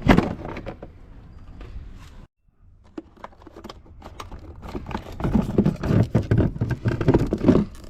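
Irregular knocks, clicks and rustling of handling noise while a battery pack is being hooked up to a scooter, with a sharp knock at the start and a brief cut to silence a little over two seconds in, then denser clattering and rustling near the end.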